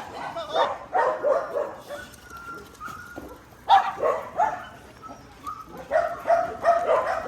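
Dogs barking and yipping on and off, with a thin whine about two seconds in.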